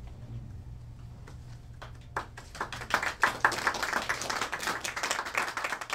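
A small audience clapping, starting about two seconds in after a low steady room hum.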